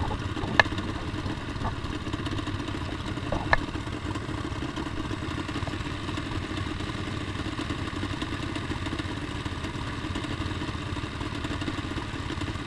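Racing lawnmower's Yamaha Banshee two-stroke twin engine idling steadily while the mower sits still. Two short sharp clicks sound in the first few seconds.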